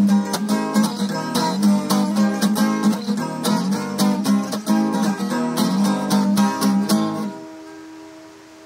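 Acoustic guitar strummed in a quick, even rhythm through the song's closing bars, stopping about seven seconds in on a final chord that rings out and fades.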